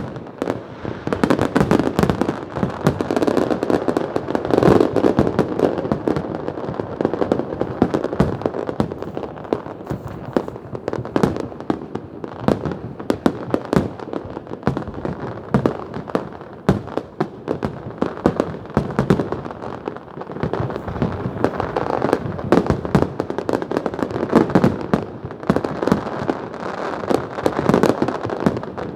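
New Year's fireworks going off in a dense, continuous barrage: many bangs and crackling bursts overlapping, one after another, with no pause.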